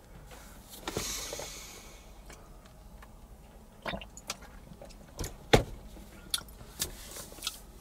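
A person drinking from a drink carton: a short breathy rustle about a second in, then a series of short gulps, swallows and mouth clicks with the carton being handled.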